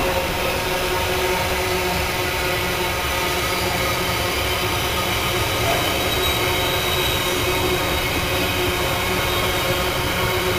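Loaded container wagons of a long freight train rolling slowly past: a steady, unbroken rumble of wheels on rail with faint whining tones over it.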